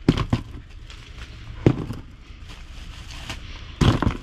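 Plastic bags crinkling and a cardboard box knocking as gloved hands pick up pieces of fried chicken and drop them into the box. There are a few sharp crackles at the start, a single knock a little later, and a longer burst of rustling near the end.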